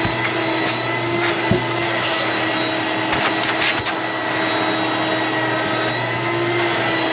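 A 1986 Electrolux Discovery 2 upright vacuum cleaner running steadily with a constant motor whine, with a few brief knocks and clicks along the way.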